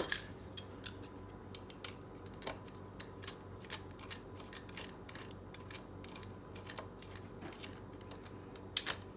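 Faint, irregular small metallic clicks and ticks of a hand screwdriver turning out a small screw, with small metal parts being handled.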